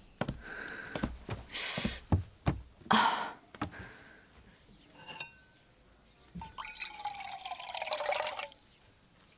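Water poured from a wicker-cased vacuum flask into an enamel mug, a steady pour of about two seconds near the end. Before it come a few knocks and rustles of handling and a small clink.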